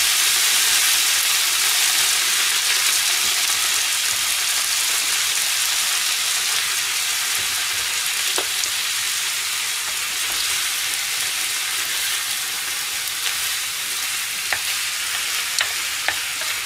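Chopped vegetables, celery just added, sizzling in oil in a frying pan, a steady hiss that eases slightly. A wooden spatula clicks against the pan once midway and a few times near the end as the vegetables are stirred.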